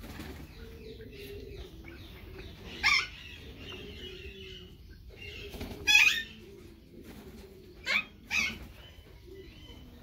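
Caged green parrots calling: four short, sharp squawks spread out, the loudest about six seconds in and two in quick succession near eight seconds.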